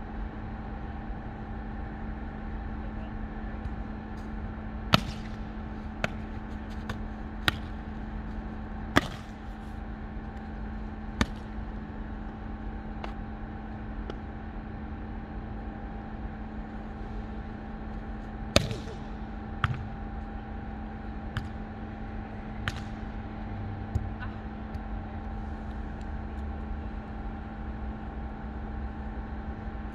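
Beach volleyball being struck by players' hands and forearms during rallies: a string of sharp smacks in two bursts, one from about five to eleven seconds in and one from about eighteen to twenty-four seconds in. A steady low hum runs underneath.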